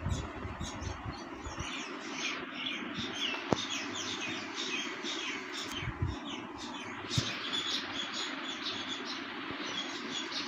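Small birds chirping in quick, repeated bursts over a steady background noise. A knife knocks sharply on the marble counter twice, about three and a half and about seven seconds in, as the dough log is cut.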